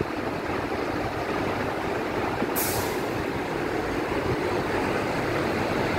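MAN truck's diesel engine idling close by as a steady low rumble, with a short burst of air hiss from the truck's air-brake system about two and a half seconds in.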